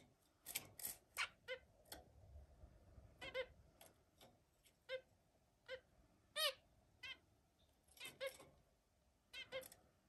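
Caged zebra finches giving short, repeated calls, singly and in quick pairs, about a dozen in all, with one louder call about six seconds in.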